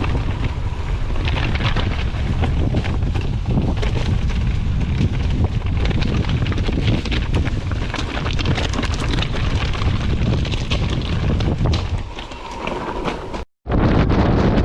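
Heavy wind buffeting the microphone over a mountain bike riding rough ground, with rapid clicks and rattles from the tyres and bike. The sound cuts out for a moment near the end.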